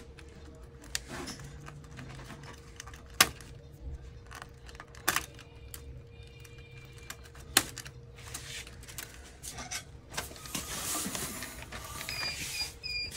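Scattered sharp clicks and knocks of the printer's plastic and metal parts being handled while its power-supply connectors are worked loose, three of them loudest, over a low steady hum.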